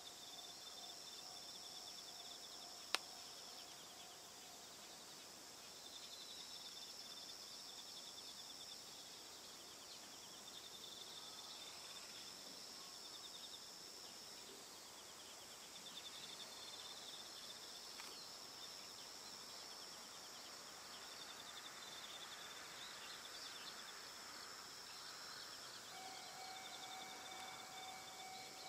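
Faint, steady high-pitched chirring and pulsing trills of insects in the fields, with a single sharp click about three seconds in and a faint steady tone joining near the end.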